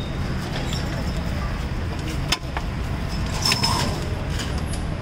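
Steady street traffic hum, with a sharp click a little over two seconds in and a brief clatter at about three and a half seconds.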